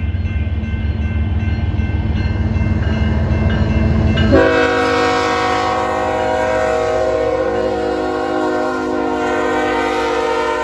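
BNSF diesel locomotive rumbling as it comes up. About four seconds in its air horn starts one long, steady blast of several tones, held for about six seconds before cutting off sharply.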